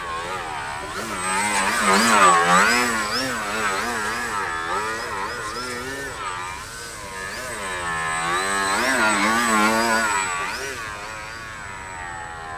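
Radio-controlled Yak 55M aerobatic model plane's motor and propeller running at close range, the pitch repeatedly rising and falling as the throttle changes and the plane manoeuvres past. It is loudest about two seconds in and again about nine seconds in.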